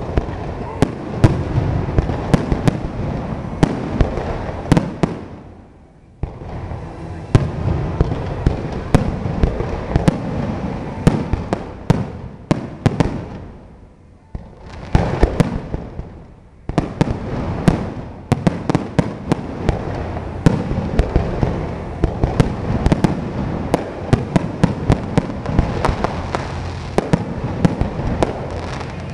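Aerial fireworks shells bursting in a dense string of sharp bangs and crackles, with two brief lulls about six and fourteen seconds in.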